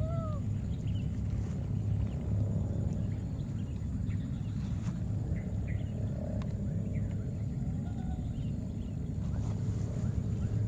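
A few short squeaky calls from baby macaques, each rising and falling in pitch, one right at the start and another near the end, over a steady low rumble and a faint steady high-pitched whine.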